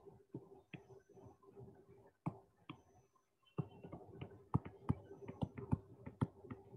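Pen stylus tapping and scratching on a touchscreen during handwriting: a string of light clicks that comes thickest in the second half, over a faint steady hum.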